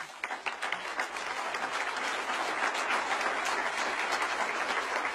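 Conference audience applauding: many people clapping, swelling over about the first second into steady, dense applause.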